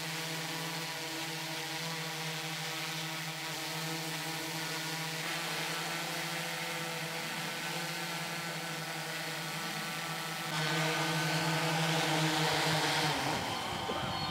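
Hydrogen fuel-cell quadcopter drone's four rotors humming steadily as it hovers, with several tones at once. The hum grows louder about two-thirds of the way through, then wavers unevenly near the end as the drone settles onto its landing pad with the propellers still turning.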